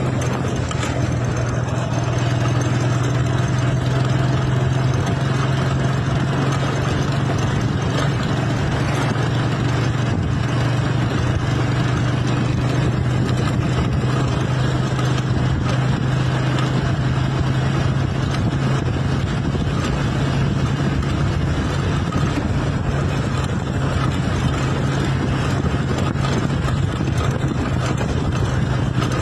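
A motor vehicle running at a steady pace: an even engine drone with a low hum and road noise, unchanged throughout.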